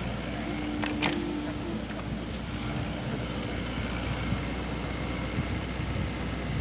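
Steady diesel engine rumble from a working excavator, with wind noise on the microphone and a couple of faint clicks about a second in.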